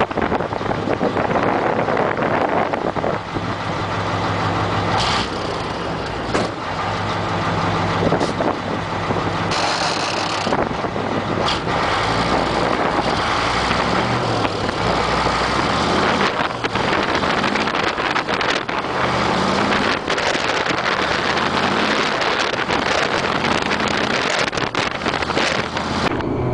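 Heavy farm vehicle engine running under load, its pitch stepping up and down, with many knocks and rattles and a brief hiss about ten seconds in.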